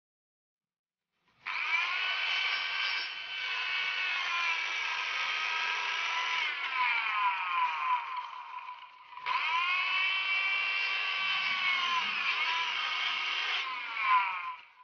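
Electric hand planer running with a high whine, the pitch sagging each time it bites into the wooden beam under load. It starts about a second and a half in, stops briefly around the middle, and starts again about a second later.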